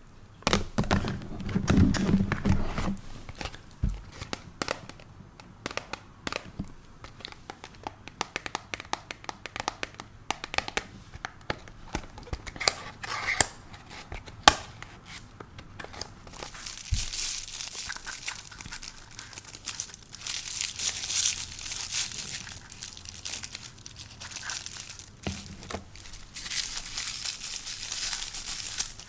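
Hands opening a cardboard advent-calendar door and unwrapping a makeup product. First come scattered taps and clicks on cardboard, then from about halfway a steady crinkling and tearing of the wrapping.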